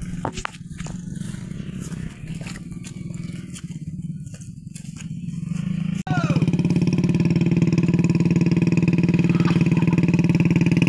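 Motorcycle engine running, with scattered knocks and rattles from riding over a rough, rain-damaged road. About six seconds in the sound cuts to a louder, steady engine note.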